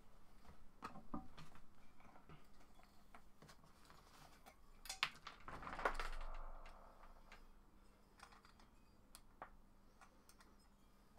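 Faint clicks and taps of a plastic cover being handled and fitted onto a small air compressor's motor, with a louder scrape and knock about six seconds in.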